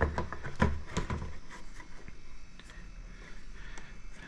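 Light knocks and clicks of a plastic motorcycle headlight case being handled and offered up to its mounts. Several come close together in the first second or so, then only faint taps.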